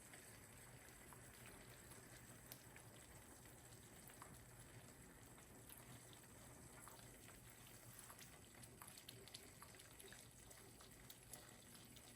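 Eggs frying in butter in a pan: a faint sizzle with scattered small pops.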